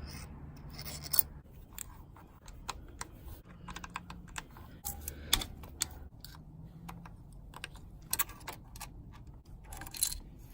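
Scattered light clicks and taps of hand tools and small metal engine parts being handled, at an irregular pace.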